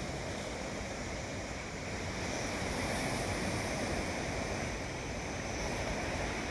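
Sea surf washing steadily onto the shore, swelling a little a couple of seconds in.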